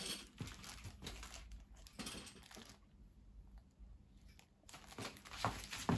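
Faint clicks and rustles of a camera tripod being handled and adjusted, broken by a short near-silent stretch in the middle.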